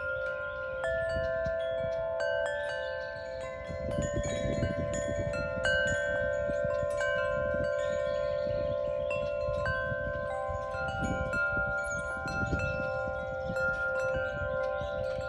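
Wind chimes ringing: several clear tones struck at irregular moments, each ringing on and overlapping the others, with gusty wind rumbling underneath.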